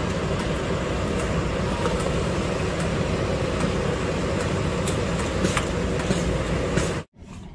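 Frozen carbonated drink (Slurpee) dispenser running while orange slush is drawn from its tap into a paper cup: a steady mechanical noise that cuts off abruptly near the end.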